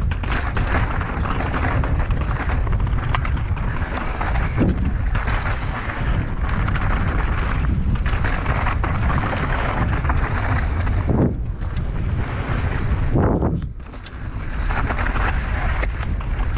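Wind rushing over the microphone of a mountain bike descending at speed, with knobby tyres rolling on dry dirt and stones and the bike rattling over rocks. The sound drops away briefly about three-quarters of the way in.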